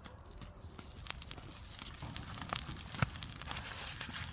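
Large bonfire of a heaped pile of garden waste crackling and popping as it burns, with irregular sharp snaps over a low rumble and one louder pop about three seconds in.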